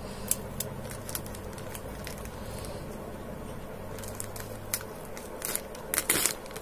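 Plastic courier mailer bag crinkling and crackling as it is slit open with a pointed tool. The crackles come sparsely at first, then thicker and louder in the last couple of seconds as the cut opens up.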